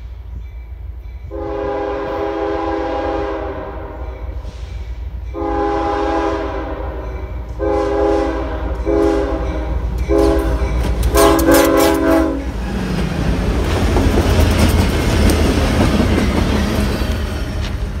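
CSX diesel locomotive's multi-tone air horn sounding a crossing warning: two long blasts, then four shorter ones in quick succession, over the steady low rumble of the engine. From about twelve seconds in, the locomotive and its cars pass close by with a loud rush and the clatter of wheels on the rails.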